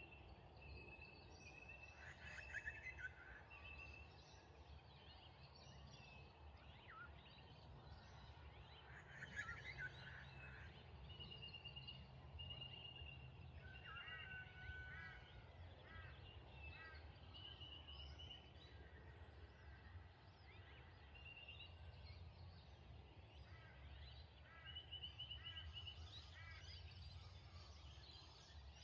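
Faint, distant bird calls at dusk: runs of short high notes and a few rapid stuttered calls, over a low steady rumble of outdoor background noise.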